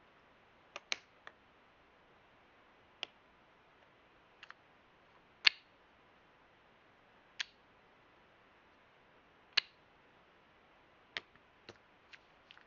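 About a dozen small, sharp plastic clicks and taps at irregular intervals, from handling the DJI Mic Mini and its parts or packaging. The loudest click comes about halfway through.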